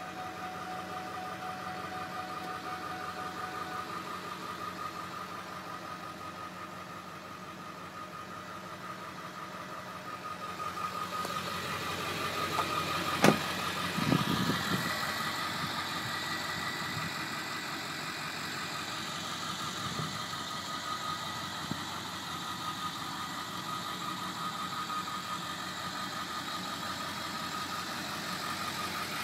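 Ford Excursion's engine idling steadily, first heard muffled from inside the cabin, then brighter and fuller from outside the vehicle. About 13 seconds in there is a sharp click followed by a low thump.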